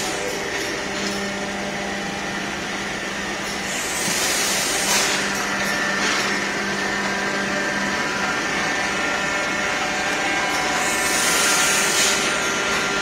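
Plastic injection moulding machines running on the shop floor: a steady machine hum with several steady tones, broken twice by hissing bursts, about four seconds in and again near the end.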